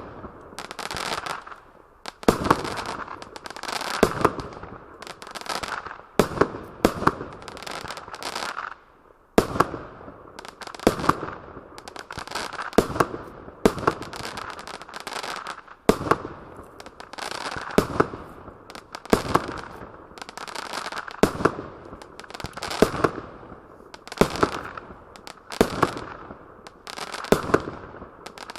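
A fireworks item (SFC15253 'Screw Face') firing a long series of sharp bangs, about one or two a second, each trailed by a fading hiss. There is a short pause about nine seconds in.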